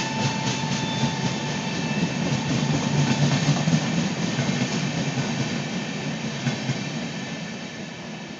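Express passenger train rolling past at speed, its wheels clattering over the rail joints in a steady rhythm, fading away near the end as the train moves off.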